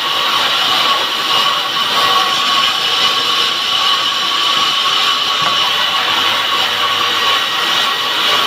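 Motor-driven saw running without a break, cutting through wood, with a steady high whine over the cutting noise.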